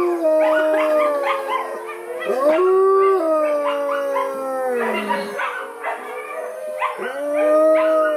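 Wolves howling in chorus: several long howls overlap at different pitches, each gliding up and down, with new howls rising in about 2.5 s and 7 s in.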